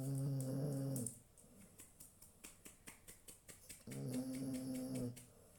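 Cocker spaniel snoring in its sleep: two drawn-out snores, each about a second long, the second one about four seconds after the first, with faint soft clicks in between.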